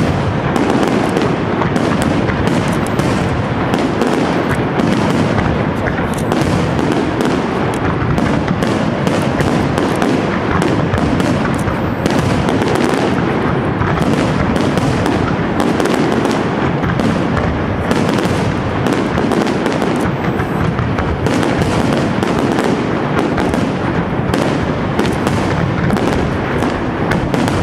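Aerial fireworks display: a dense, unbroken barrage of shells bursting, their bangs and crackling packed closely together throughout.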